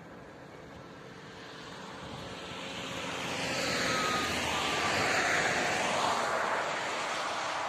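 A vehicle passing close by: a broad whooshing rush that builds over a few seconds, peaks about halfway through, then starts to fade.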